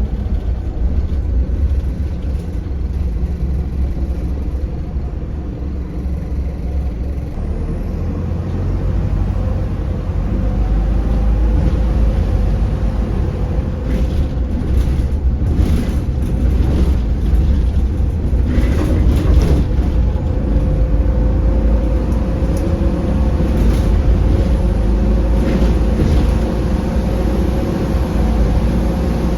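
Optare Solo midibus running on the road, heard from inside: a steady low engine rumble whose tone strengthens about ten seconds in. Several short hisses of air come around the middle.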